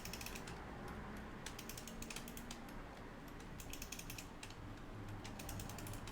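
Wind-up alarm clock's mainspring being wound by its key: about four bursts of rapid ratchet clicks, one with each turn of the key.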